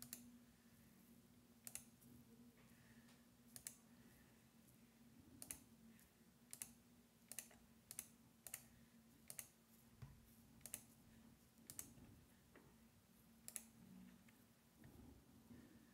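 Faint, sharp clicks of a computer mouse, about a dozen at uneven intervals of roughly a second, over a faint steady hum.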